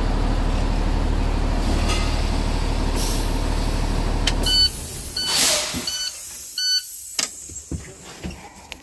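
A school bus's Cummins ISB diesel engine idles steadily, then stops suddenly about halfway through. Four short electronic beeps follow, with a brief burst of hiss among them, then a few light clicks and knocks.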